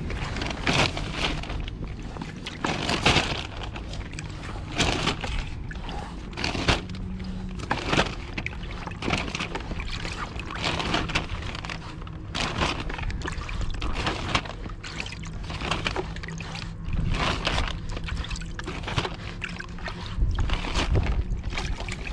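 Water sloshing and splashing in a bucket as garfish are pulled out of it one after another, with a plastic carrier bag rustling as the fish go in. The splashes come in short irregular bursts every second or so.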